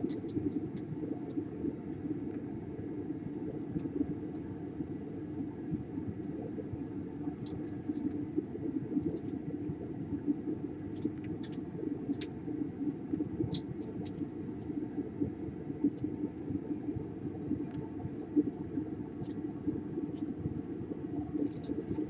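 Steady low background rumble, with faint scattered clicks and scratches from a small metal pick scraping leftover solder out of the power-jack holes on a laptop motherboard.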